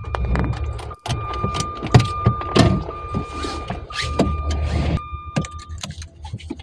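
Car engine idling inside the cabin while a dashboard warning tone sounds as a steady high beep, broken a couple of times, and stops near the end. Over it come the rustle and clicks of a seat belt being pulled across and buckled.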